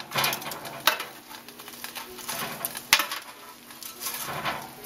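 Kitchen tongs clicking and scraping against a metal baking pan as breaded chicken pieces are turned over, a few sharp clicks spread out over the stretch.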